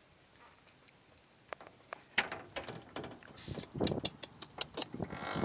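Wind gusting on the microphone in low rumbles, with a quick run of sharp clicks and rattles that begins about two seconds in, after a quiet start.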